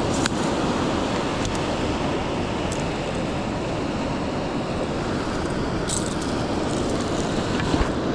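Steady rush of ocean surf on the beach, with wind on the microphone and a few light clicks.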